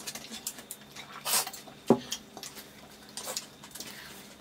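Eating by hand from steel plates: scattered soft clicks, clinks and wet mouth sounds, with a sharper click about two seconds in.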